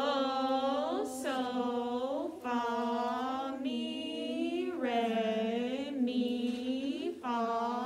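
A woman singing a slow sight-reading melody on solfège syllables, one held note after another with short breaks between, about one note a second.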